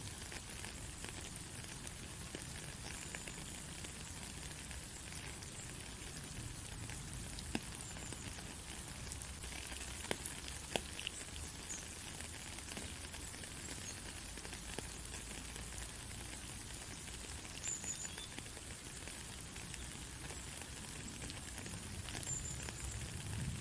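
Steady rain falling on a country road: an even hiss with scattered sharper drop ticks and a low rumble underneath. A few faint, brief high chirps come now and then.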